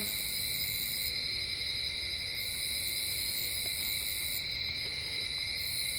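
Chorus of night insects: a steady high-pitched drone, with a still higher hiss that sounds for about two seconds, stops for about one, and starts again.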